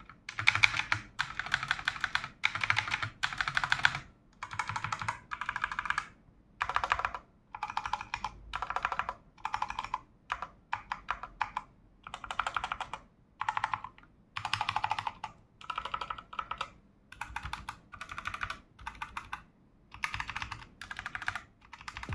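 Mechanical keyboard keys with Outemu switches being typed in quick short runs, a fast clacking clatter of about a second at a time with brief pauses between runs.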